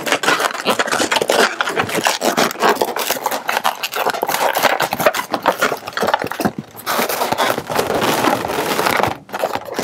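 Inflated latex modelling balloons (260s and heart balloons) being handled and twisted together, rubber rubbing and scraping against rubber in a continuous run of short strokes, with a brief lull about two-thirds of the way through.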